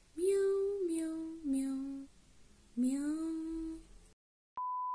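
A woman's voice sings three drawn-out notes, the last one sliding up before it holds. The sound then cuts out to dead silence, and near the end a click and a steady, even beep tone begin.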